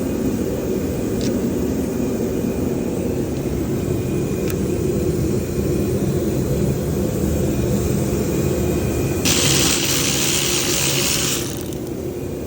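A steady low machine drone, with a loud hiss for about two seconds near the end.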